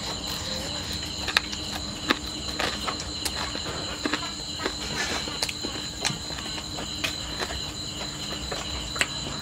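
A steady, high night-insect chorus of crickets, with scattered short clicks and crunches from a person chewing grilled frog.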